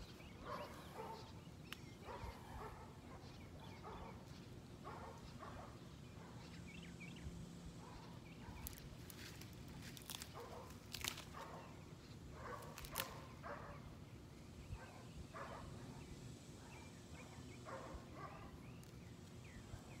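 Faint scattered animal calls, short and irregular throughout. A few sharp clicks stand out near the middle.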